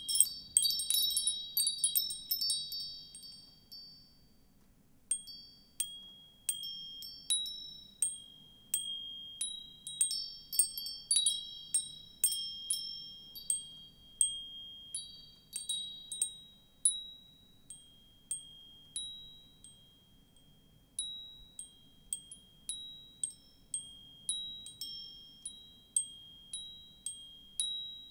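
Wind chimes ringing in irregular, high-pitched strikes: a dense cluster at first, then a sparser, uneven patter of single strikes and small groups, each note ringing on briefly before fading.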